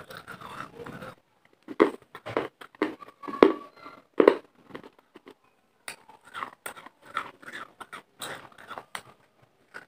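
Baked clay pieces being bitten and chewed right at a clip-on microphone: a series of sharp, irregular crunches, loudest in the first half.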